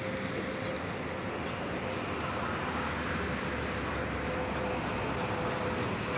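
Diesel locomotive engine running steadily as the locomotive creeps slowly forward to couple onto the carriages: an even running noise with a low rumble and a constant thin tone over it.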